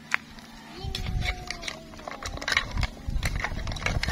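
A metal ladle clinking and knocking against clam shells and the side of a metal cooking pot as clams in coconut milk are stirred, a run of sharp irregular clicks. About a second in, a drawn-out animal call rises and slowly falls in the background.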